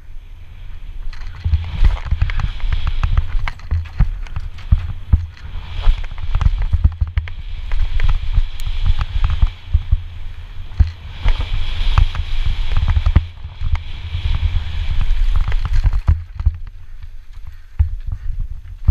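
Banshee Darkside downhill mountain bike with an inverted DVO fork ridden fast, heard close up: a constant low rumble with dense knocks and rattles as the tyres run over the slats of a wooden boardwalk and then rough dirt. A rushing hiss of wind on the microphone rides over it and eases off near the end.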